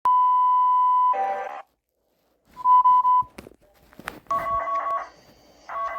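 Electronic alert tones: a steady high beep lasting about a second, cut off by a short harsh burst, then after a pause a second, shorter beep and a few clicks. From about four seconds in, a fast two-pitch trilling ring sounds for about half a second and starts again near the end.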